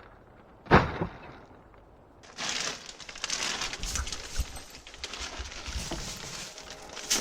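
Material being broken and pulled off in chunks. A sharp knock comes about a second in, then several seconds of crunching and crackling debris, and another knock near the end.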